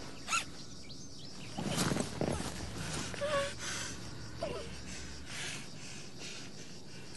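Muffled gasps and nasal breathing from a woman gagged with duct tape, with a short muffled whimper, over rustling of the bag she is bound in.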